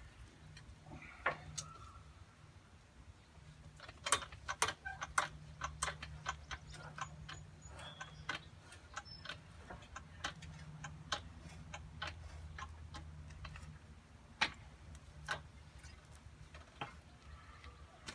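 Irregular light clicks and clinks of metal parts being handled while a loader is fitted to a garden tractor, some in quick runs and some spaced apart, over a steady low hum.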